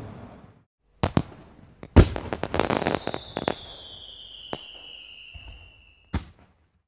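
Fireworks: a couple of sharp bangs about a second in, then a loud bang about two seconds in followed by a burst of crackling. A whistling firework sounds next, falling slowly in pitch for about three seconds, and one more sharp bang comes near the end.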